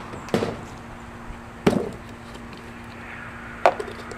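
Three sharp knocks of small metal rifle parts being handled and set down on a cardboard-covered bench, each over a second apart, with a faint steady hum behind them.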